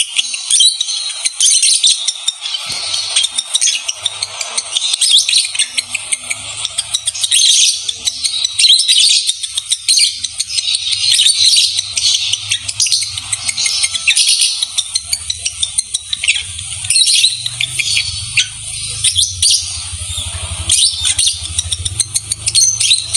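Lovebirds chattering in a continuous stream of rapid, shrill chirps and squeaks, the breeding-condition chatter of a pair ready to mate. A faint low hum runs under it from a few seconds in.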